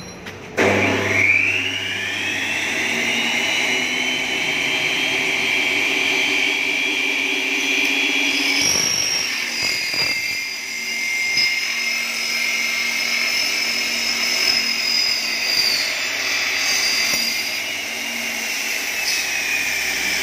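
Double-head aluminium cutting saw, built from Hitachi 380 saws, starting up about half a second in. Its whine rises fast to a steady high pitch, then shifts in tone near the middle as it cuts through a Xingfa aluminium profile.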